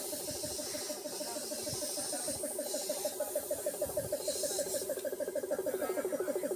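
A continuous chorus of rapid, pulsing animal calls, with short bursts of hiss now and then.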